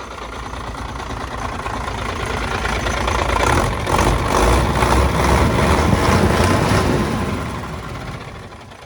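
Truck diesel engine running at idle, its exhaust freshly repaired and sealed, with no squeak from the front engine cover to be heard. The sound grows louder toward the middle and fades again near the end.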